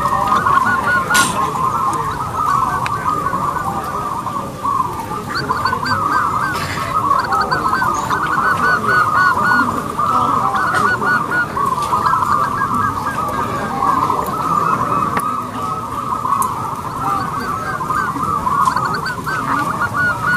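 Zebra doves (perkutut) cooing, a continuous run of rapid, overlapping rolling notes.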